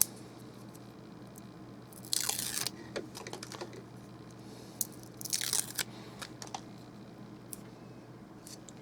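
Backing film being peeled off the adhesive tape on a replacement iPhone 6 Plus battery: two short peeling sounds, about two seconds and five seconds in, with a few light ticks of handling.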